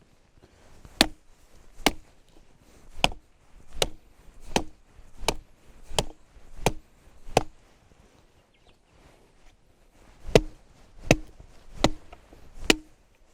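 Steady chopping: a blade strikes a wooden surface in a run of about nine evenly spaced blows, roughly one and a half a second. After a pause of about three seconds come four more.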